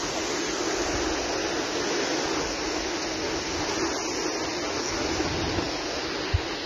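Muddy floodwater rushing past in a steady torrent, with wind rumbling on the microphone and one brief low thump near the end.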